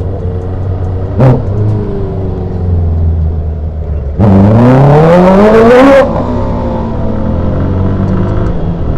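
Honda CBR650R inline-four with an Akrapovic full-system exhaust pulling at low speed, with a short blip of the throttle about a second in. About four seconds in it is opened up hard and the note rises steeply for nearly two seconds, very loud, then cuts back abruptly to a lower, steadier drone.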